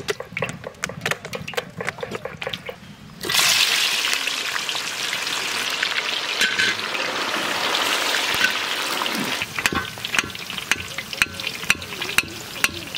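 Mustard oil in a steel wok crackling lightly, then a sudden loud sizzle about three seconds in as paneer cubes go into the hot oil, settling into steady deep-frying. Near the end the sizzle is quieter, with sharp spitting crackles.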